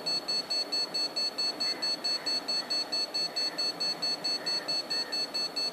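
Electronic buzzer beeping rapidly and steadily, a high-pitched pulsed tone about four beeps a second.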